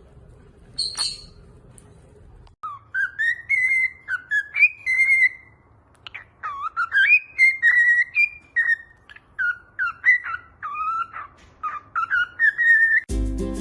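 A pet parrot whistling a tune in short phrases of sliding, whistle-like notes, after a brief high chirp about a second in.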